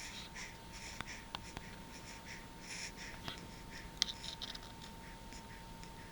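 A sleeper's soft hiccups and breathing: short breathy puffs with a few sharp clicks, the loudest about four seconds in. A faint steady high whine runs underneath.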